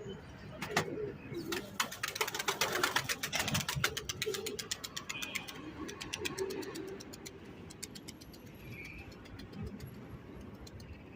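Pigeons cooing low, over dense runs of quick sharp clicks through the first two thirds, with a couple of short high squeaks.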